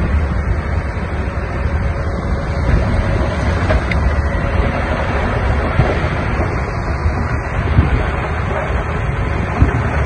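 Diesel engine of heavy earthmoving machinery running steadily under wind buffeting the microphone, with a few short knocks on top.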